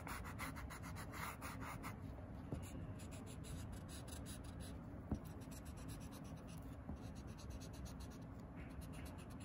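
Pencil eraser rubbed quickly back and forth on drawing paper, about eight strokes a second, in short spells with pauses between.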